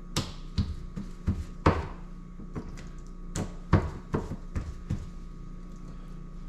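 Black drum fillets being patted dry with a paper towel on a board, giving about a dozen irregular soft thumps and knocks over a steady hum.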